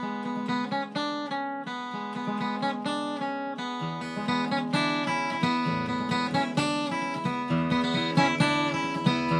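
Acoustic guitar flatpicked as a solo instrumental intro: a quick, even run of separate picked notes over ringing chord tones, with lower bass notes joining about four seconds in.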